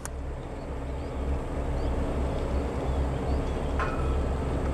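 Steady low outdoor rumble, with one short faint sound near the end.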